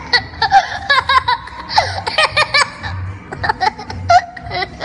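A young boy giggling hard in rapid, high-pitched bursts of laughter.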